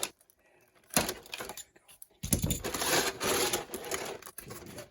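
Plastic toy packaging being handled and pulled apart: a sharp crack about a second in, then a couple of seconds of crinkling and crackling that fades near the end.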